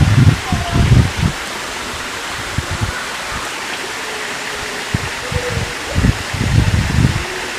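Siamang recording between loud calls: a steady background hiss with irregular bursts of low rumbling near the start and again about six to seven seconds in, and a few faint short call notes.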